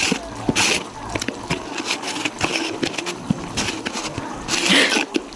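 Small clicks, knocks and short rustling bursts of kitchen containers and packets being handled.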